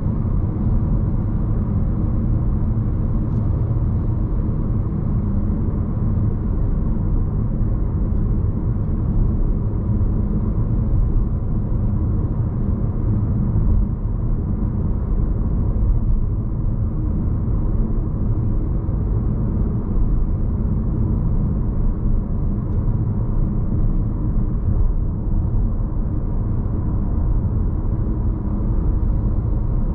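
A 2018 Audi Q3's 1.4-litre turbocharged four-cylinder petrol engine running steadily while driving on rough, unpaved ground, with a constant low rumble from the engine and tyres.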